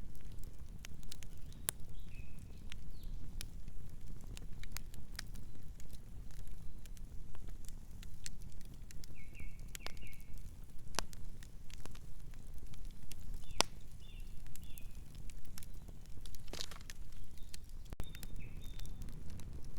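Campfire burning, wood crackling with sharp pops at irregular intervals over a low steady rumble. A few brief high chirps come and go in the background.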